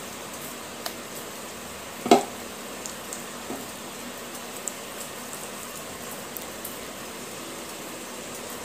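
Hands squeezing and kneading a ball of wet clay paste in a bowl: soft wet squishing, with scattered small clicks and one louder wet click about two seconds in.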